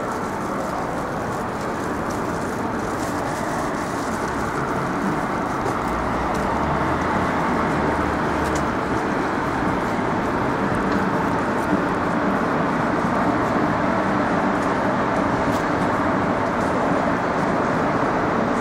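Steady city street traffic noise, with a low vehicle engine hum joining for a few seconds about six seconds in.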